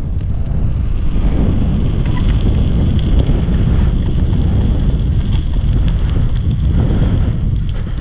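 Steady wind buffeting the microphone of a bicycle-mounted camera while riding, a loud low rumble.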